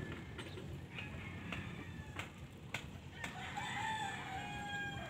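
A rooster crowing: one long call about three and a half seconds in, over steady low background noise with a few sharp clicks.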